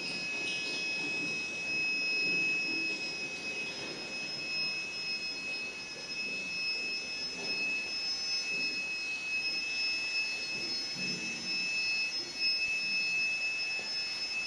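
A steady high-pitched whine with a fainter higher overtone, over a low murmur of distant voices.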